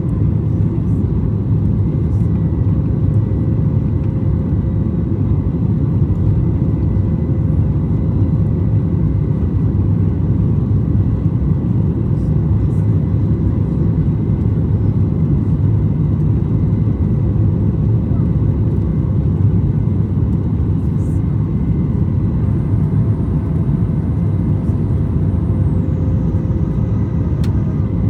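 Steady low rumble of the jet engines and rushing air inside the cabin of a Boeing 737 MAX 8, heard from a window seat, with faint steady tones over it. A faint high tone comes in a few seconds before the end.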